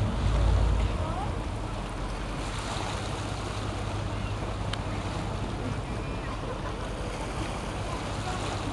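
Tourist boat's engines running with a steady low drone, heard over wind and water noise. A gust of wind rumbles on the microphone in the first second.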